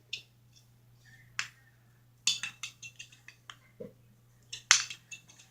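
Fidget stick flipping and landing after light taps: a scattered series of sharp clicks and clacks, with a quick run of them in the middle and the loudest one near the end.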